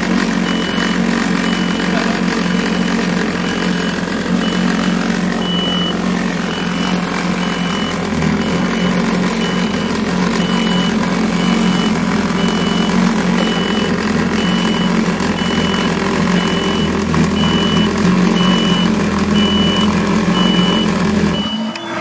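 A 2004 Kawasaki STX-15F jet ski's four-stroke four-cylinder engine running steadily out of the water while its cooling system is flushed with RV antifreeze. The low-fuel warning beeps about once a second. The engine is shut off near the end.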